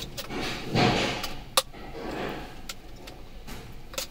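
Handling of a handheld plastic megaphone while its battery compartment is opened to take the batteries out: sharp plastic clicks near the start, about a second and a half in and near the end, with a louder rattle and scrape about a second in.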